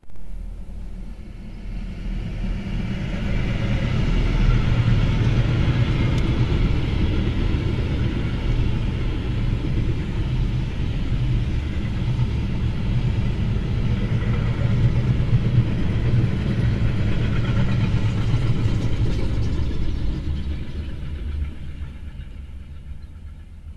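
Steady low vehicle rumble that builds over the first few seconds, holds, then fades away near the end.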